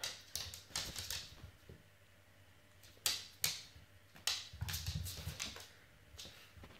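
A dog's claws clicking on a laminate floor and its plastic cone collar knocking and scraping on the floor as it tries to get at a ball: scattered sharp clicks in small clusters, with a low scraping rumble a little before the five-second mark.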